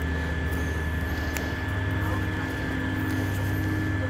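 Steady hum of an electric blower fan, with a thin steady high whine over a low drone.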